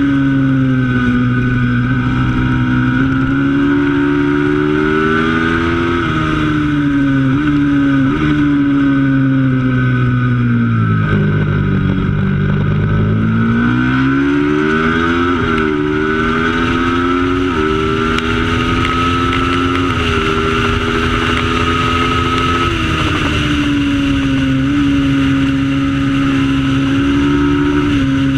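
Racing motorcycle engine at full throttle, its pitch climbing and dropping back with each upshift. About ten seconds in it slows to a low pitch, as if braking for a corner, then pulls hard through the gears again.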